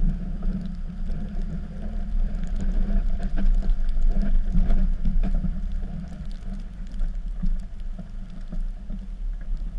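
Cummins diesel engine of a Dodge pickup running steadily while plowing snow, a constant low engine sound with scattered light clicks and rattles over it.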